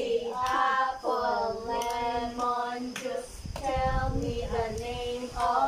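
Voices singing a sing-song chant with long held notes, with a few sharp clicks among the phrases.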